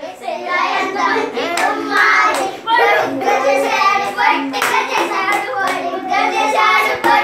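A group of children singing together while clapping their hands, with several sharp claps among the singing.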